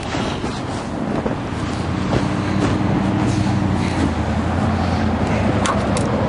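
A motor vehicle's engine running steadily over road noise, its low hum setting in about two seconds in, with a few light clicks.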